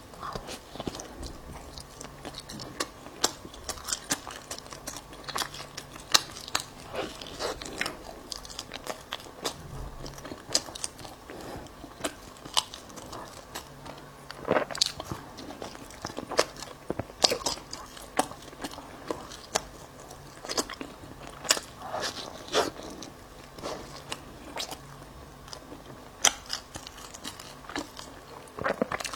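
Bagel being bitten and chewed, with many irregular crisp crunches and mouth sounds.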